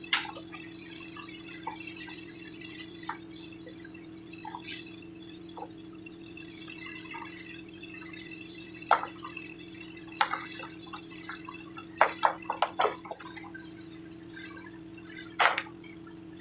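Water jet from a hose spraying onto mud and gravel in a hydraulic gold-mining pit, a steady hiss with a steady low hum underneath. Sharp knocks break through a few times, the loudest sounds, with a quick run of them about twelve seconds in.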